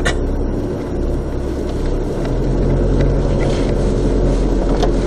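Car engine and tyre noise heard from inside the cabin while driving slowly on a rough dirt track. The engine's low hum gets stronger about two seconds in, and there are sharp clicks at the start and near the end.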